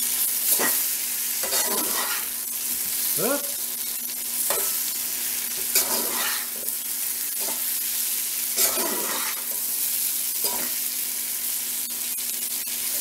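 Potato chunks frying in bacon grease and butter in a cast iron skillet, with a steady sizzle. A metal spatula scrapes and scoops against the pan bottom about every second as the potatoes are turned, one stroke drawing out into a rising scrape.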